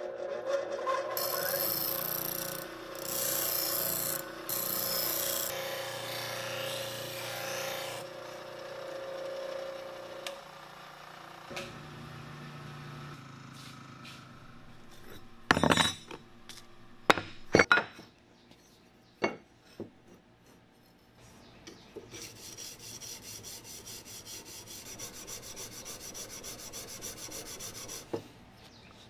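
An 8-inch slow-speed bench grinder runs with a steady hum while a plane iron is pressed to its wheel, giving hissing bursts of grinding, then the grinder runs down. After a few knocks, the plane iron is rubbed back and forth on a flat sharpening stone in quick, even strokes.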